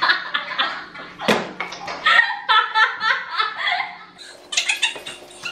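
Two women laughing together in repeated giggling, breathless bursts, with one brief sharp sound about a second in.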